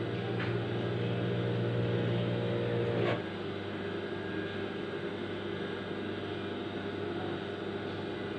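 Steady electric hum of an industrial sewing machine's motor running idle, not stitching. A click about three seconds in, after which the hum drops slightly in level.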